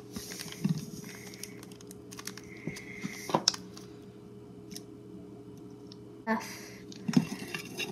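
Scattered light clicks and knocks of a glass bowl and a plastic spoon being handled against a metal bowl on a countertop, over a faint steady hum, with a short louder rush of noise about six seconds in.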